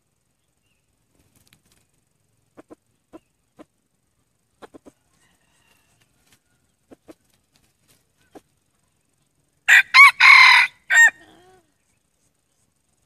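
Red junglefowl rooster: a string of soft, short clucks, then about ten seconds in one loud, short crow broken into several quick parts.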